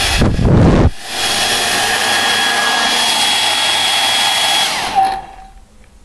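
Northmace HDNM12 hair dryer on its high setting: a steady rush of air from its small 12-volt motor and fan with a thin high whine, with the airflow buffeting the microphone for about the first second. About five seconds in it is switched off and the whine falls in pitch as the fan spins down.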